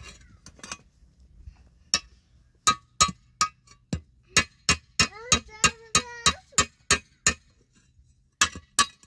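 Hammer striking a thin metal sheet held on a stone slab: sharp metallic clanks with a short ring, about three a second from about two seconds in, pausing briefly near the end.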